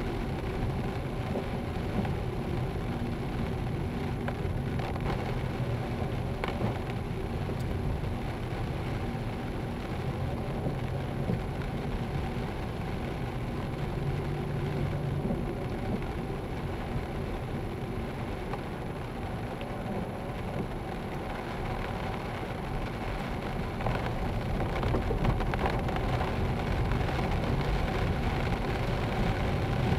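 A car driving on a wet road, heard from inside the cabin: a steady engine hum under tyre noise, with the odd raindrop tapping on the windscreen. It grows louder over the last few seconds.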